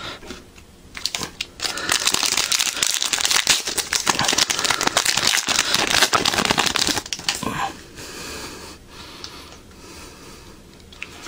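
Trading cards being handled and flipped through: a dense run of quick papery rustles and clicks for about six seconds, then quieter handling near the end.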